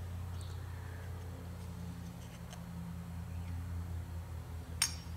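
Faint light clicks of a Carter BBD carburetor's float and small parts being handled as the float setting is checked, with one sharp click near the end, over a steady low hum.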